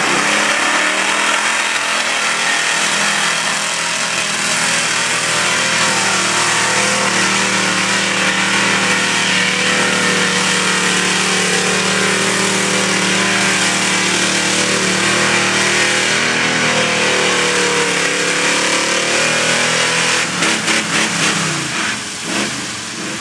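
Lifted square-body pickup's engine held at high revs as the truck plows through deep mud and water, with a steady hard-working note. About 20 seconds in, the revs break into a few short blips and fall away.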